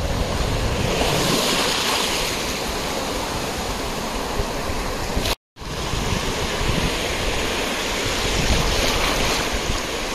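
Sea waves washing onto a beach, a steady rushing hiss, with wind rumbling on the microphone. The sound cuts out for an instant about halfway through.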